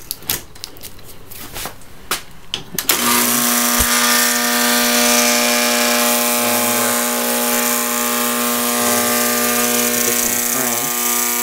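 Handling clicks and rustles of wire and metal. Then, about three seconds in, an AC electromagnet built from a large transformer and run at 250 volts switches on with a loud, steady mains buzz that holds to the end.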